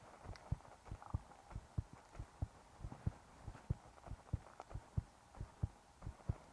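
A human heartbeat heard up close: steady, regular low thumps at about one and a half beats a second.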